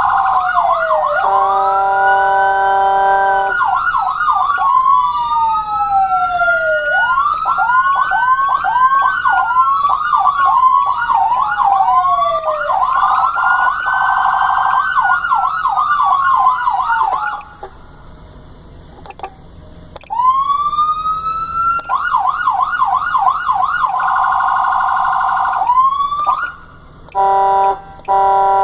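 Two electronic vehicle sirens, a Whelen Cencom Gold and a Federal Signal PA150, sounding together through separate speakers, their tones overlapping out of step: slow rising and falling wails, fast repeating yelps, and stretches of a steady harsh horn-like tone. The sirens drop out briefly about two-thirds through, then come back on a rising wail into a yelp, with short bursts of the horn-like tone near the end.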